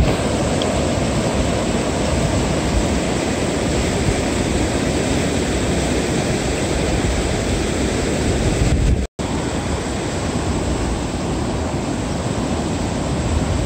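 River water rushing steadily over a low weir, a continuous loud roar of white water. It cuts out for an instant about nine seconds in.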